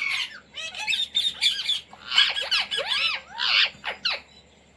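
Indian ringneck parrot giving rapid high chatter, then a run of short squawks that arch up and down in pitch.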